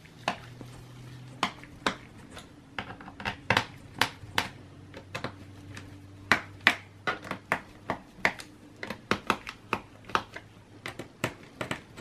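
Mini Phillips screwdriver turning out the screws of a laptop's plastic bottom cover: many sharp, irregular clicks and ticks of the bit in the screw heads, over a faint steady low hum.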